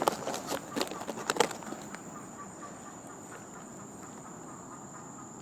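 A run of sharp crackling clicks for about the first two seconds, the loudest about a second and a half in. Then only insects remain: a steady high drone with faint, even, rapid chirping.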